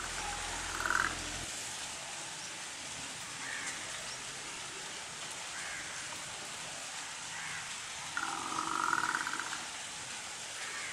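Young water buffalo calling: a short call about a second in, then a longer, louder call about eight seconds in.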